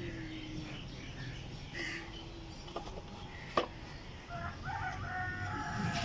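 A rooster crowing once, a long call in the last second and a half or so. A little past halfway there is a single sharp knock, the loudest sound, as the plastic A/C evaporator housing is handled.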